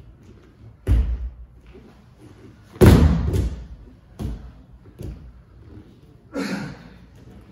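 Judo throw onto a mat: a heavy thump about a second in, then a loud thud near three seconds as the thrown partner's body lands on the mat, followed by a couple of lighter knocks.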